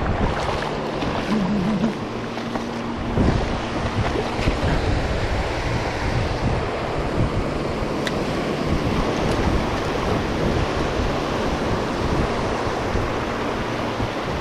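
Surf washing on the beach, with wind buffeting the microphone.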